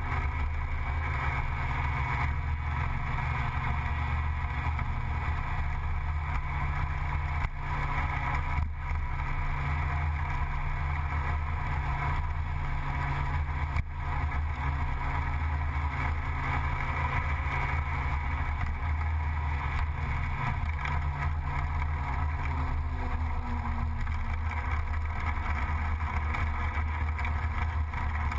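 Gilera Runner 180 scooter engine running steadily at cruising speed, a continuous low drone mixed with road and wind noise.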